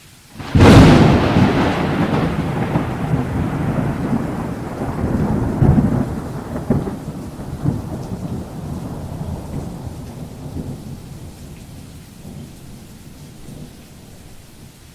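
A nearby thunderclap in a rainstorm: a sudden sharp crack about half a second in, then a low rolling rumble with a few swells that slowly dies away over the next ten seconds or so.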